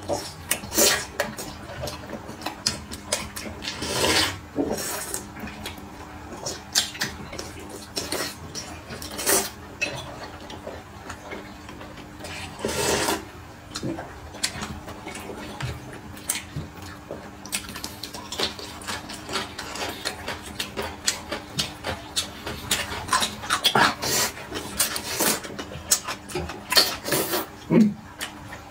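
Close-miked eating sounds: slurping hot and sour noodles and soup from a glass bowl, chewing, and chopsticks clicking against bowls and plates in irregular bursts, with a few longer slurps.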